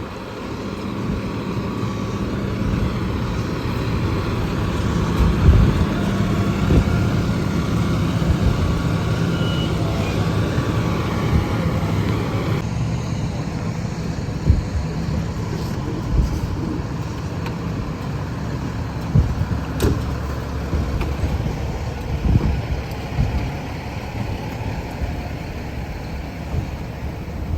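A fire truck's diesel engine running, a steady low drone. The higher hiss in the sound drops away about halfway through.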